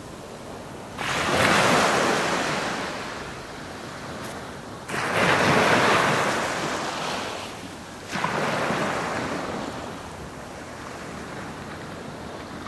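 Small waves breaking on a sand beach, three in a row about a second, five seconds and eight seconds in; each starts suddenly and fades over two to three seconds as the water washes up the sand, with a steady low hiss of surf between them.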